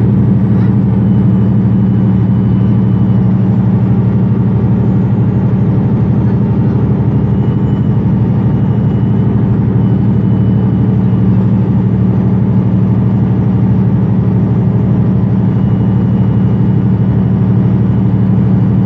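MAN Lions City A20 EEV city bus's diesel engine idling steadily as the bus stands at a stop.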